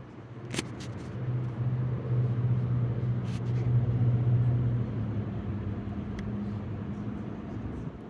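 A motor vehicle's engine running close by, a steady low hum that swells over the first few seconds and then eases off, as of a car passing or idling. A few sharp clicks sound near the start and again about three seconds in.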